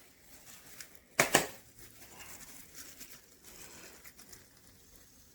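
Faint handling noises, light rustling and small clicks, with one sharp knock about a second in.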